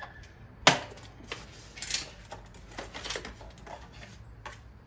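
Gloved hands pulling foam wrap and plastic straps off a boxed folding electric bike: short bouts of crinkling and rustling packaging, with a sharp click near the start.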